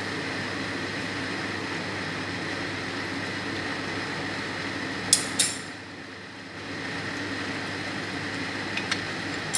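Steady running noise of a kitchen appliance, with two sharp clicks about five seconds in and a few faint ticks near the end.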